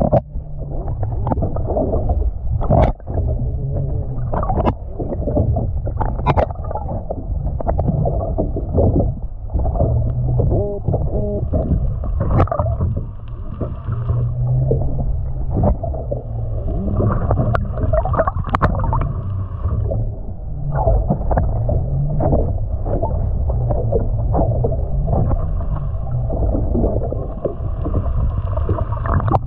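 Muffled underwater water noise picked up by a submerged camera: a constant low rumble and sloshing, broken by frequent short knocks and clicks.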